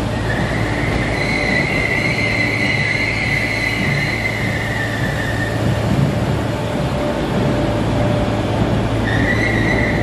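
Merseyrail Class 507 electric train pulling out of the platform with a high, steady screeching of its brakes that fades about five and a half seconds in and starts again near the end, over a steady low hum.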